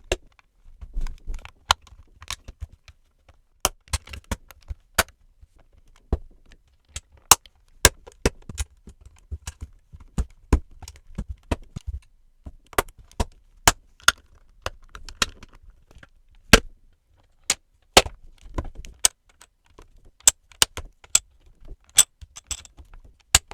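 LEGO plastic bricks being snapped together and handled: irregular sharp clicks, one or two a second, with soft rattling and rustling of pieces in between.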